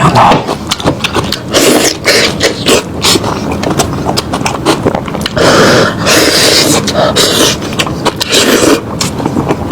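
Eating sounds of lamb head meat being chewed and sucked from the bone: a dense run of sharp wet clicks and smacks with louder noisy bursts every second or so.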